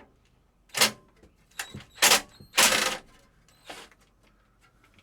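Several sharp metallic clanks and a short clattering rattle, with a brief high ring after it: metal tools or parts being handled and set down.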